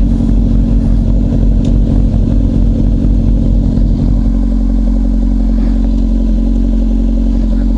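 Motorcycle engine running steadily at low revs, idling with the bike stopped.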